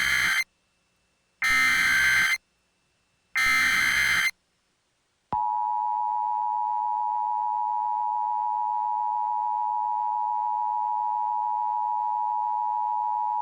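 Emergency Alert System SAME header: three data bursts of about a second each, a second apart, the first already under way. After a second of silence, the steady two-tone EAS attention signal comes in about five seconds in and holds at an even pitch and level.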